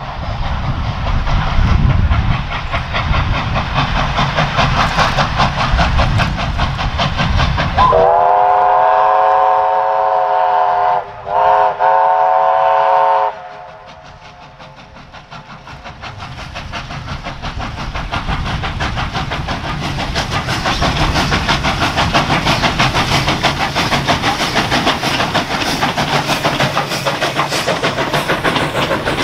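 Victorian Railways K class 2-8-0 steam locomotive working hard on approach, then sounding its steam whistle, a chord of several notes, for about five seconds with a brief break in the middle. Afterwards the wagons of the train roll past with a rhythmic clickety-clack over the rail joints that grows louder toward the end.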